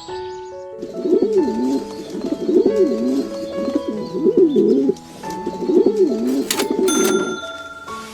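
Pigeons or doves cooing in repeated low, wavering phrases, over background music with steady sustained notes.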